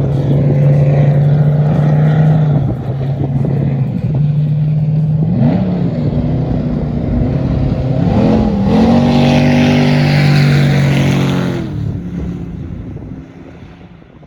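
Jet boat's 5.3-litre LM7 V8 running under way at a steady pitch. The pitch dips and comes back up around the middle, then the engine runs loud with a rushing hiss for a few seconds. Near the end the engine backs off and fades.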